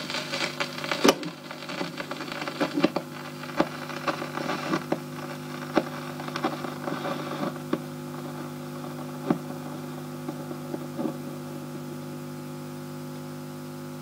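Old record player with its stylus still tracking a spinning 7-inch single after the song has ended: surface crackle and scattered sharp clicks over a steady hum and hiss. The clicks are frequent for the first several seconds, then thin out to an occasional pop.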